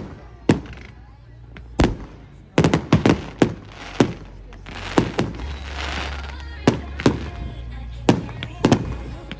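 Fireworks display: a string of sharp aerial bangs, a quick cluster of them about a third of the way in, with a crackling hiss partway through.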